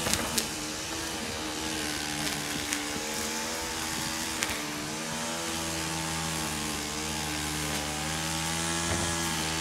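Motorised hedge trimmer running steadily in the background, its engine note wavering slightly in pitch, with a few light clicks.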